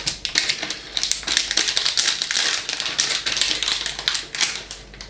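Crinkling plastic soft-lure packets being handled and opened by hand: a dense run of crackly rustles and small clicks that eases off near the end.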